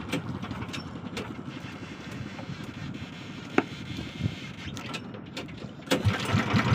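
Steady wind-and-water noise on a small fishing boat with a few scattered clicks and knocks, then about six seconds in a small boat engine starts up and runs with a quick, even low beat.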